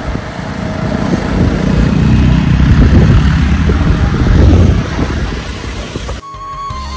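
Vehicle on the move, an uneven low rumble of engine and road noise that swells in the middle. About six seconds in it cuts off abruptly and background music begins.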